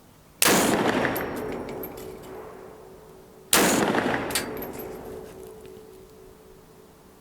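Two shots from a 7.62×39 AR-15 rifle, about three seconds apart, each followed by a long echo that dies away slowly.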